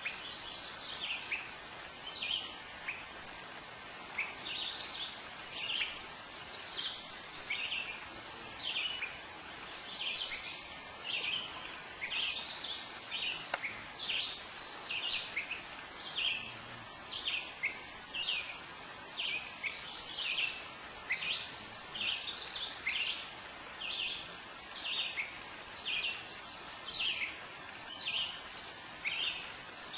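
Songbirds singing: a continuous run of short, high, quickly falling chirping notes, heard over a faint steady hiss.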